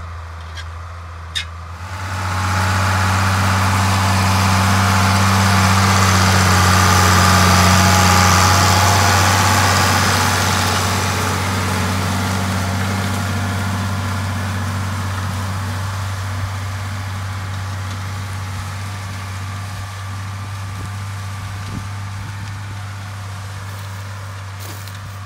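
International Harvester 1066 tractor's turbocharged six-cylinder diesel running under load while pulling a disk harrow through cornstalks. It comes in sharply louder about two seconds in as the tractor passes close, peaks around eight seconds in, then fades slowly as it moves away.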